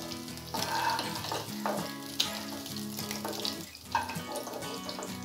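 Small bele (scribbled goby) fish sizzling as they finish frying in oil in a nonstick kadai, with a slotted spatula scraping and tapping the pan a few times as the pieces are lifted out.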